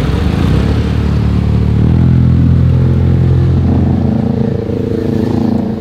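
A motor vehicle's engine running loud and close, its pitch rising about two seconds in as it speeds up, then holding steady.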